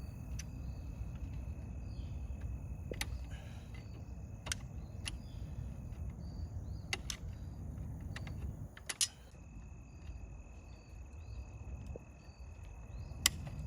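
About eight sharp, short clicks at irregular intervals over a steady low rumble, with faint high chirps in the background.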